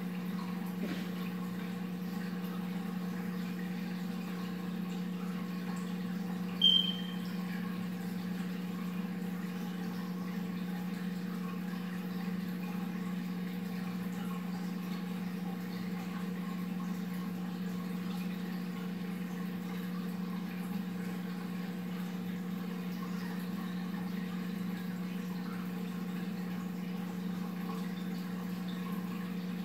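Aquarium wet/dry filtration system running: a steady low hum with a wash of running water. A single brief high-pitched chirp sounds about seven seconds in.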